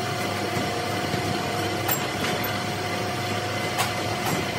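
Crankshaft grinding machine running with a Nissan six-cylinder crankshaft chucked in it: a steady hum with a constant whine over it, and a few sharp clicks about two and four seconds in.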